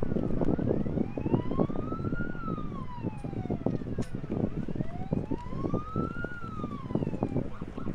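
Wailing siren, its pitch rising and falling slowly twice, each sweep about four seconds long, over a loud, dense crackling rumble.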